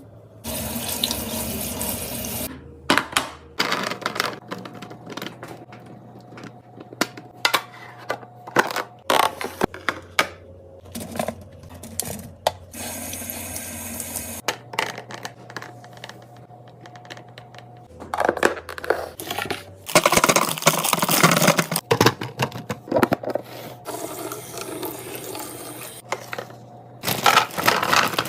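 Running water in spells of a couple of seconds, with many clicks and knocks of containers and packaging in between.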